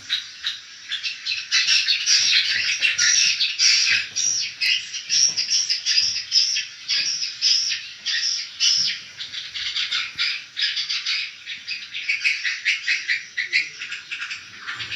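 Swiftlets inside a swiftlet house chirping and twittering all together, a dense unbroken chorus of high chirps.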